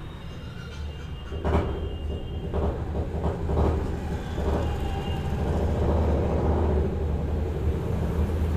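Low rumble of a passing vehicle that grows louder from about a second and a half in, with faint irregular clatter above it.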